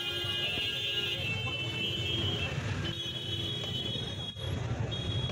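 Steady road-traffic hum with a high-pitched electronic tone, like a vehicle horn or alarm, sounding in three long stretches that break off briefly twice.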